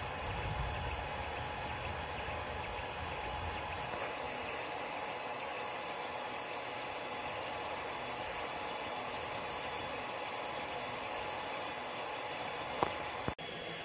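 Ender 3 3D printer running, its cooling fans and stepper motors giving a steady whir with a thin whine as the rotary axis turns the mandrel under the hot nozzle. There is a single short click near the end.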